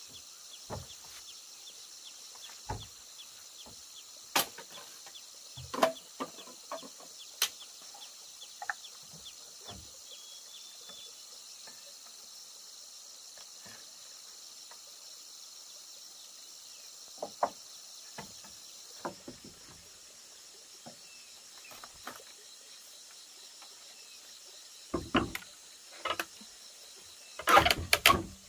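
Steady high insect chirring in the forest, with scattered sharp knocks and taps. Near the end comes a short burst of loud clattering knocks.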